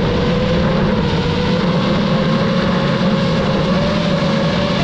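DJI FPV drone's motors and propellers running steadily, a loud buzzing hum whose pitch sags slightly and climbs back.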